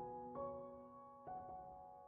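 Quiet background piano music: a couple of soft notes struck and left to ring and fade.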